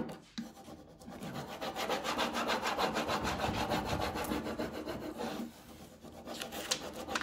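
Rub-on transfer being burnished onto a painted wooden bench with a hand-held applicator tool: rapid back-and-forth scraping strokes over the transfer sheet. The strokes ease off near the end, with a few sharper scrapes.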